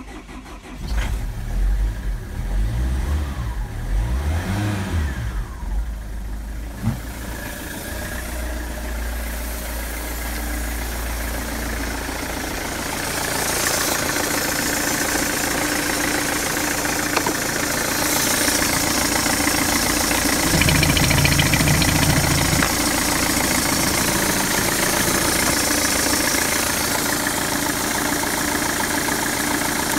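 Citroen Xantia's 2.0 HDi (DW10ATED) four-cylinder common-rail turbodiesel starting about a second in, then running and settling to a steady idle. It is heard first from the driver's seat, then under the open bonnet.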